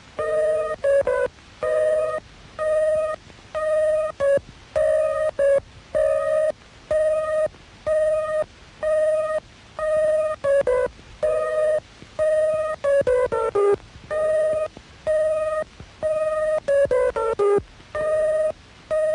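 Computer-generated electronic beeps from a synthesiser driven by a PDP-15 computer. A steady-pitched tone repeats about every two-thirds of a second, and a rapid run of short beeps stepping down in pitch breaks in twice, about 13 and 17 seconds in.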